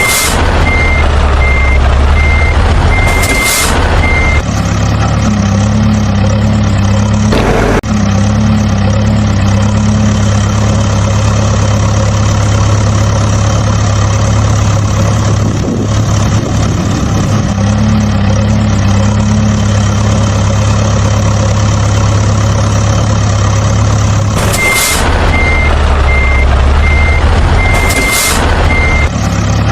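Recorded truck engine sound running steadily, with a truck's reversing beeper sounding a series of evenly spaced beeps at the start and again near the end.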